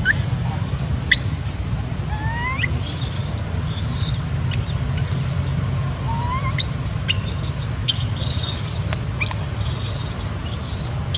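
Young long-tailed macaque crying: repeated very high, thin squeals that sweep up and down, coming in clusters, over a steady low rumble. These are the begging cries of an overage infant trying to nurse from a mother who has no milk.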